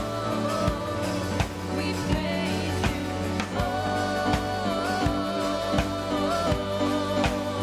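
Worship music with a steady beat, held bass notes and long, wavering melody notes.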